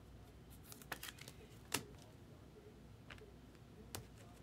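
Faint scattered clicks and taps of trading cards and packs being handled at a desk, with a sharper click a little under two seconds in.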